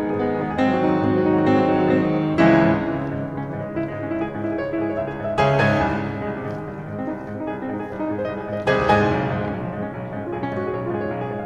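Slow piano music: chords struck every two to three seconds, each ringing out and fading.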